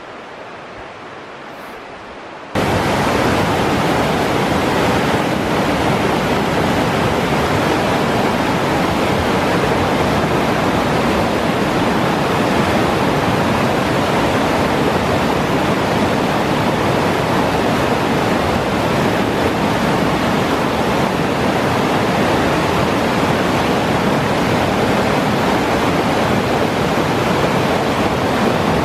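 A fainter steady hiss, then about two and a half seconds in a sudden jump to the loud, steady rush of whitewater cascading over rock ledges at a waterfall.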